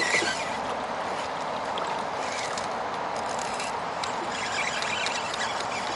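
Water washing and trickling around a kayak hull, a steady wash with a few faint clicks.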